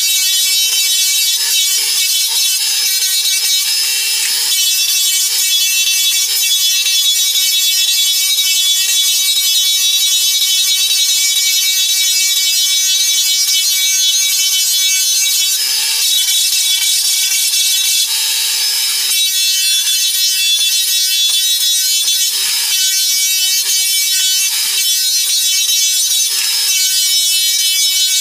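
Drum floor sander running with a steady high-pitched whine as it sands old Douglas fir floorboards, with short surges of rougher sanding noise every few seconds.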